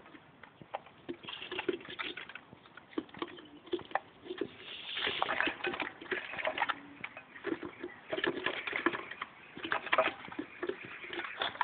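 Caged male twite calling and twittering in short scattered bursts, mixed with light clicks and patter of the bird hopping about the perches and wire cage.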